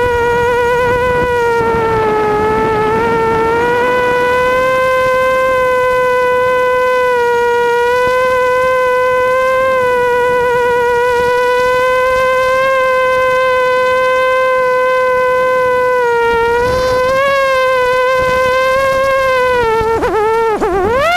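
FPV quadcopter's motors whining steadily in flight, the pitch wavering slightly with the throttle. Near the end the pitch dips and then climbs sharply.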